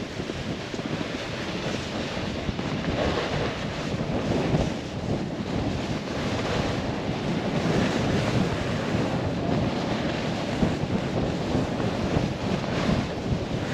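Wind rushing over the microphone and a snowboard sliding and carving across the snow, the rushing swelling and easing with the turns.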